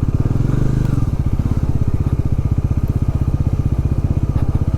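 Motorcycle engine running steadily while riding, its exhaust beating in a rapid, even pulse.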